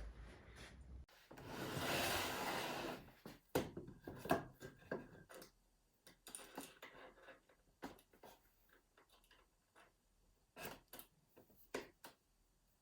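Pieces of wood being handled: a scraping rub about a second in, then scattered light knocks and clicks of wood set down and moved.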